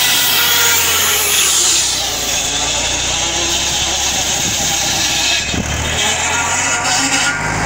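Tractor-powered saw bench cutting along a log while the tractor engine runs steadily under load. The harsh high cutting noise is strongest at first and drops away shortly before the end.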